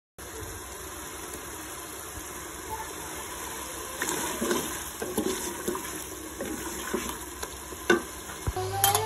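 Mutton karahi curry sizzling in a metal pressure-cooker pot, with a wooden spatula scraping and stirring through the meat from about four seconds in, and a sharp knock against the pot near the end.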